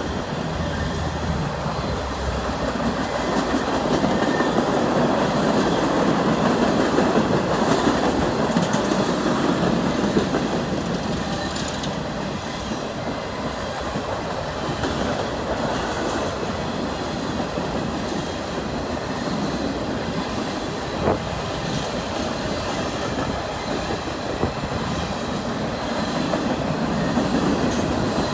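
A CN freight train rolling past, its wheels clattering over the rails in a steady rumble, with an occasional sharp clank.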